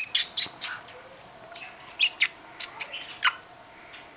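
Quick kissing or lip-smacking squeaks made to a cat, in two bursts: four near the start and about six more from two to three seconds in.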